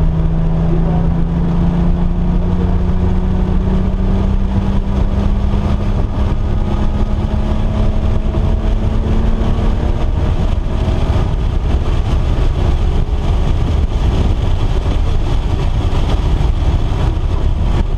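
Car engine running at speed under heavy wind and road rumble, its note climbing slowly through roughly the first half before merging into the steady roar.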